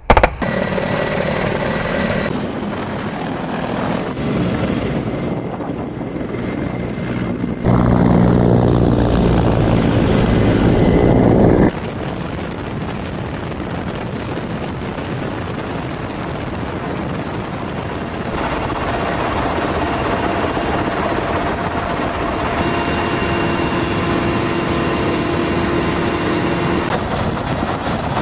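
Russian attack helicopters in flight: steady rotor and turbine noise that changes abruptly several times as shots are cut together, loudest for a few seconds a third of the way in.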